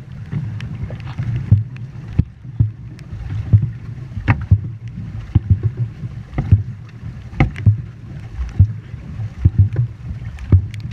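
Dragon boat crew paddling together: paddle strokes hitting the water with a sharp splash about once a second, over a steady low rumble.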